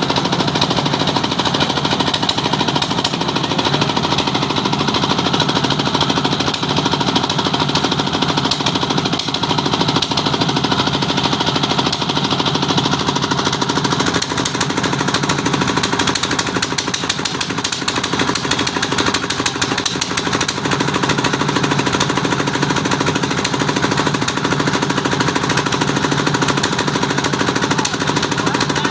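Continuous loud workshop machinery noise: a rapid, even rattling clatter over a steady hum that does not change.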